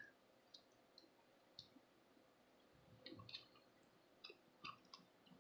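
Faint, scattered clicks of small plastic parts as a combiner hand is handled and fitted onto a Transformers action figure, a few single ticks at first, then a cluster about three seconds in and more near the end.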